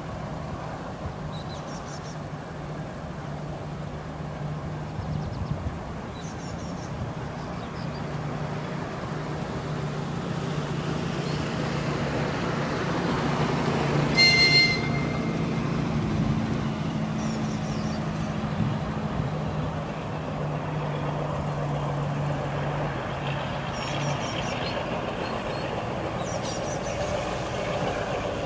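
TEM17 diesel shunting locomotive running with a steady low engine drone that grows louder as it approaches. About halfway through it gives one short, high-pitched toot of its horn, the loudest sound.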